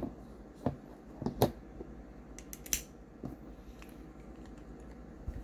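A few sharp, separate clicks and taps of a folding pocket knife being handled on a work surface: metal clip and hardware clicking, with quiet gaps between them.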